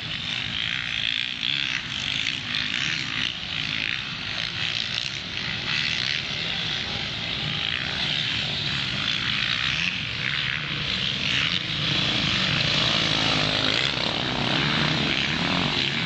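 Motocross dirt bike engines buzzing and revving around the track, pitch rising and falling, getting louder near the end as one bike comes close.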